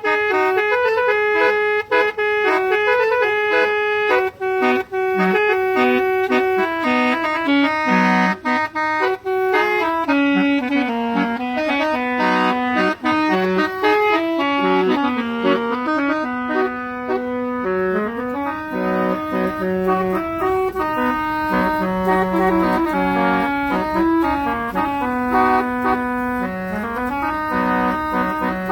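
Telolet musical horn, a set of tuned air horns, playing a continuous melody of held notes that step up and down, with a few brief gaps between notes in the first third.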